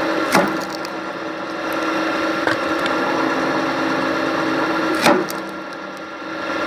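Engine-driven log splitter running steadily, with two loud cracks of wood splitting: one about a third of a second in and one about five seconds in.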